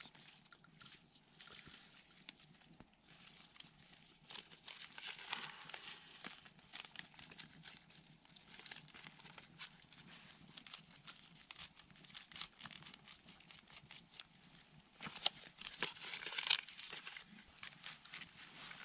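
Dry spruce twigs and birch bark crackling and crinkling as they are handled and packed into a split-stick torch: faint scattered snaps, a little louder about five seconds in and again near the end.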